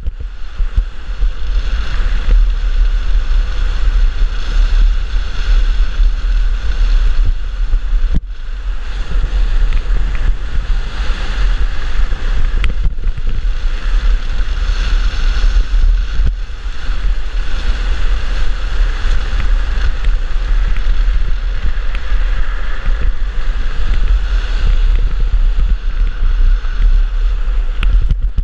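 Wind buffeting the rider-mounted camera's microphone during a fast downhill run on a drift trike, over the steady hiss and rumble of the trike's wheels on asphalt. The noise is continuous apart from brief breaks about 8 and 16 seconds in.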